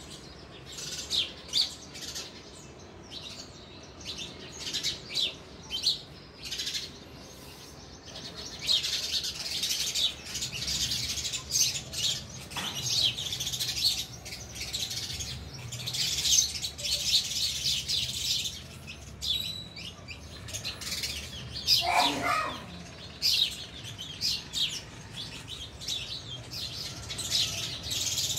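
A flock of house sparrows chirping: scattered single chirps at first, then a dense, busy chattering chorus from about eight seconds in. About twenty-two seconds in, a brief lower sound slides downward in pitch.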